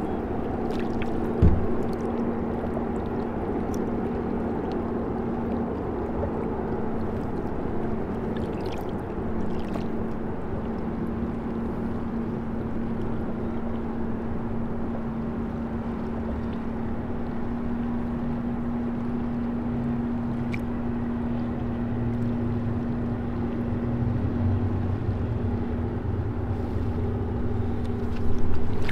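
Boat motor running steadily with a constant hum, a single thump about a second and a half in, and a deeper hum coming in over the last third.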